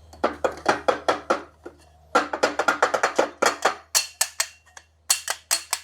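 Background music: a quick rhythmic run of short plucked or struck pitched notes, about four to five a second, with a brief pause about two seconds in.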